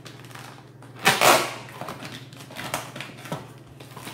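A blade cutting through the packing tape along the top seam of a cardboard box, with one loud rasping slice about a second in, followed by several short clicks and scrapes of the blade against the cardboard.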